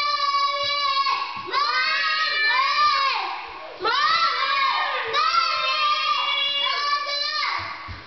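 A run of long, wavering howled notes, about six in a row, each about a second long, rising at the start and falling away at the end.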